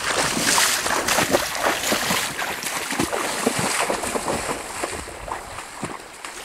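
Water sloshing and splashing around a wader's legs as he wades through shallow river water, in many short, irregular splashes.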